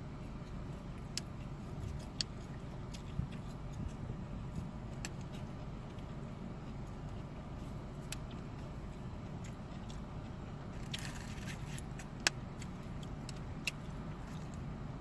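Scattered small clicks and taps from handling food, with a short rustle about eleven seconds in and a sharp click just after it, over the steady low hum of a car's interior.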